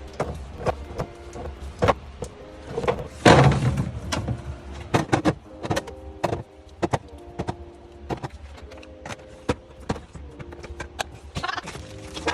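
Sharp clicks and knocks of items being set down and arranged during a restock, over soft background music with held notes. There is a louder, longer clatter a little after three seconds in.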